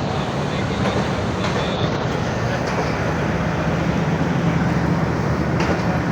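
Passenger train pulling out of the station, a steady rumble of the train rolling on the rails.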